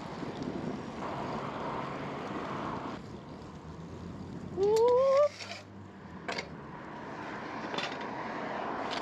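Wind and wet road noise from riding a bicycle in the rain. About halfway through there is a short rising squeal, followed by a couple of sharp clicks.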